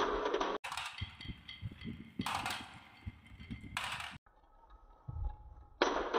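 Glass marbles rolling down wavy wooden marble-run tracks, rumbling over the bumps with many quick knocks and clacks. The noise stops and starts abruptly several times.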